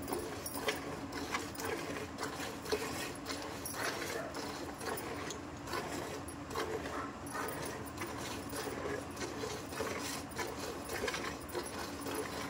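Cow being milked by hand: rhythmic squirts of milk hitting the milk already in a steel pot, about one and a half squirts a second.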